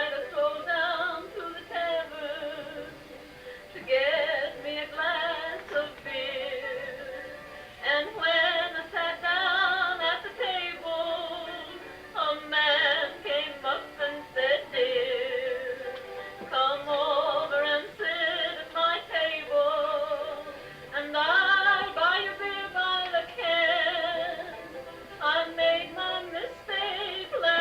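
A song: a singing voice holding long, wavering notes over music, in phrases with short breaks between them.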